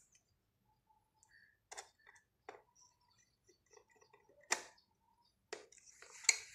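Scattered clicks and taps from the plastic case of an analog multimeter as its battery cover is closed and a small screwdriver turns the cover screw, the loudest click about four and a half seconds in.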